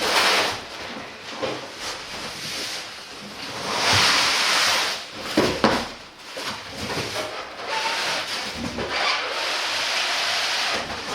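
Cardboard box and styrofoam packing rubbing and scraping as a large machine is pulled up out of its box. The rubbing comes in long swells, loudest at the start and about four seconds in, with a few knocks in the middle, then settles to a steadier hiss.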